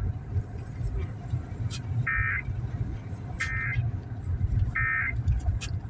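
Emergency Alert System end-of-message data bursts: three short, harsh digital buzzes about 1.4 s apart, marking the end of the severe thunderstorm warning broadcast. They play over the steady low rumble of a car on the road.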